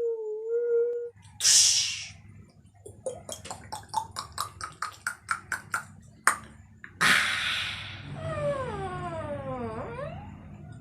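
Vocal sound effects made with the mouth: a held hum that cuts off about a second in, then a loud breathy hiss, a quick run of clicks at about five a second, a single sharp pop, another hiss, and a long falling whistle-like glide.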